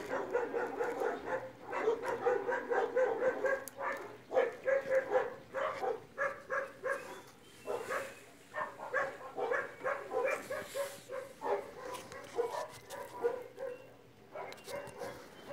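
A dog barking and yipping over and over in quick short calls, with a few brief pauses between runs.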